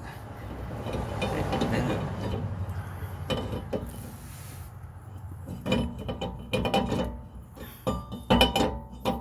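A new steel brake rotor clinking and knocking against the hub and wheel studs as it is worked into place: a rustle of handling first, then a run of sharp metallic knocks with brief ringing through the second half.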